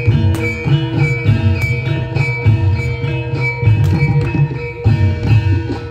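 Traditional Javanese jaran kepang dance music played live: drums strike a steady, brisk rhythm under ringing pitched percussion and held tones.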